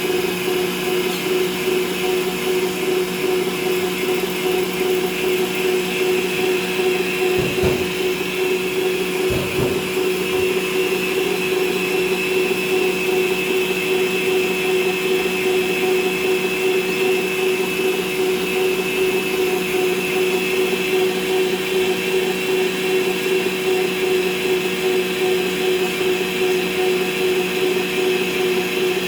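Electric kitchen appliance motor running steadily at one speed, a constant hum with a high whine over it. There are two short knocks about seven and a half and nine and a half seconds in.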